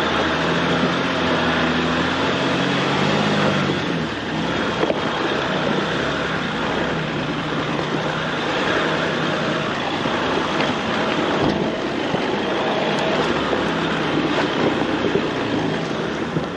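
Jeep driving along a dirt trail: the engine runs low under a steady rushing noise of tyres and wind, with the engine note rising in the first few seconds and again near the end.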